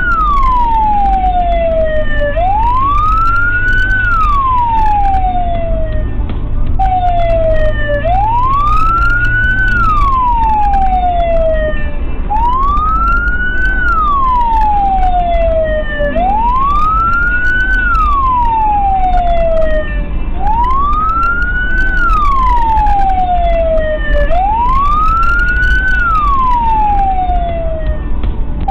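Emergency vehicle siren on the wail setting, rising over about a second and a half and falling over about two seconds, repeating roughly every four seconds, over the steady low rumble of a car driving.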